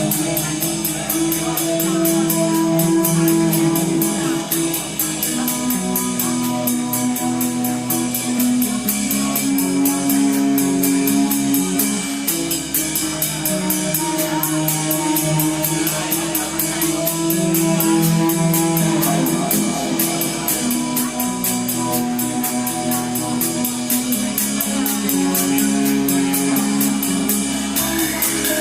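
A rock band playing live: guitar holding long notes that change pitch every few seconds, over a drum kit keeping a steady, fast beat on the cymbals.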